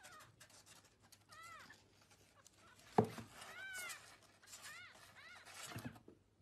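Tiny kitten mewing: several short, high calls, each rising and falling in pitch, with a sharp knock about halfway through.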